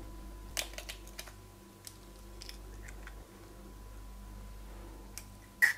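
Hen's egg being cracked and its shell pulled apart by hand to separate the yolk from the white: a quick cluster of small shell cracks and clicks about a second in, then a few fainter clicks.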